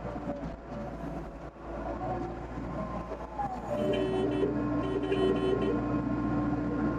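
Doosan DX55 mini excavator's diesel engine running under load. About halfway through, a steady whining tone of several pitches joins and stays for the rest of the sound, louder than the engine.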